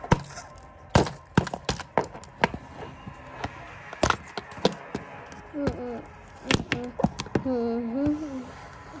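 Irregular sharp knocks and taps, a dozen or so, with a short wavering voice-like hum between about five and a half and eight and a half seconds in.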